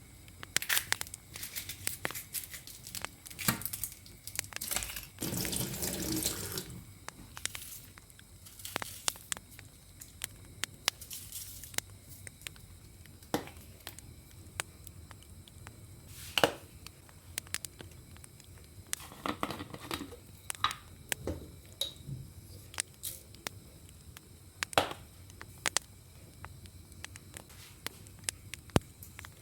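Kitchen sink work: a tap runs briefly about five seconds in, and scattered clicks and knocks of dishes and utensils being handled come throughout.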